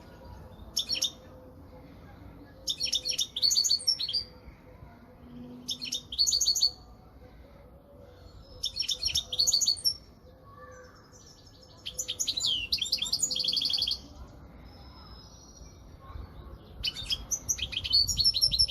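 European goldfinch singing: six bursts of fast, liquid twittering a few seconds apart, one of them ending in a long rapid trill about two-thirds of the way through.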